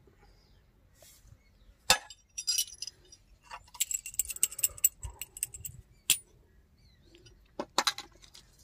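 Metal hand tools clinking and tapping: scattered sharp metallic clinks, with a thicker run of small clinks a few seconds in.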